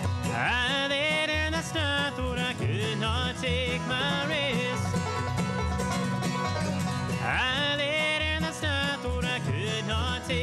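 Bluegrass band playing: banjo, mandolin and acoustic guitar over a walking bass line, with a lead melody sliding over the top in two long phrases.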